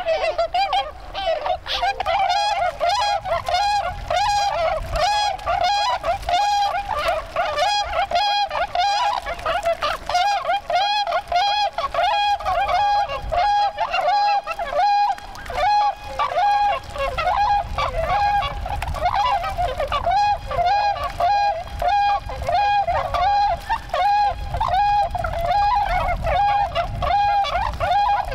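A flock of Bewick's swans calling: many short honking calls overlap in a steady, dense chorus.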